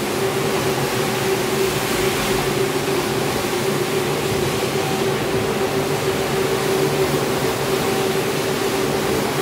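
Rotary floor scrubber shampooing a wet rug: a steady motor hum with a constant whine over an even hiss from the brush.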